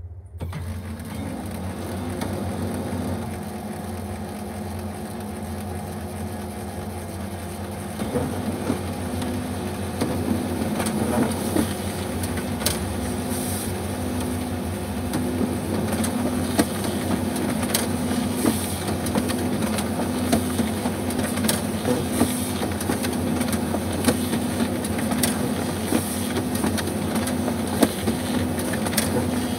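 Kyocera Ecosys laser printer running a double-sided print job: a steady mechanical hum that starts up right at the beginning, then grows louder about eight seconds in, with scattered clicks as the paper is fed through and a printed sheet comes out.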